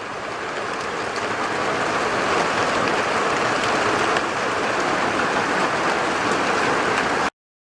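Heavy rain pouring down in a steady roar, growing a little heavier over the first couple of seconds, then cutting off suddenly near the end.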